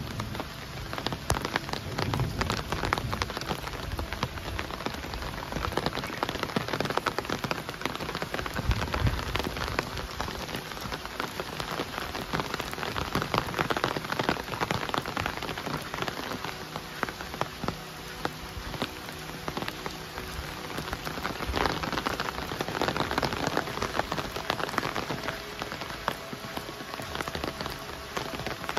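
Steady rain falling, with a dense patter of individual drops striking nearby surfaces.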